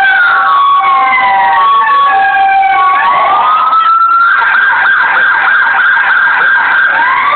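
Sirens of several passing police vehicles sounding over one another. A wail rises and then falls, with short steady tones between. From about four seconds in, a fast pulsing tone takes over, and another siren starts rising near the end.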